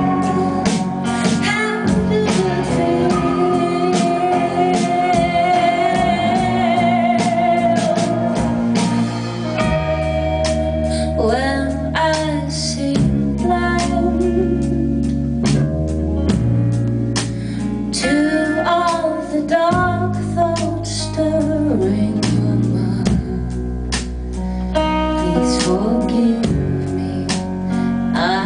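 A woman singing with vibrato over a live rock band: electric guitars, keyboards, bass and drums.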